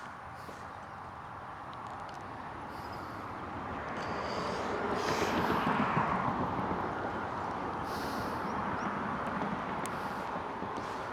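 Road traffic passing close by: a vehicle's tyre-and-engine noise that swells for a few seconds, peaks about halfway through and then slowly fades.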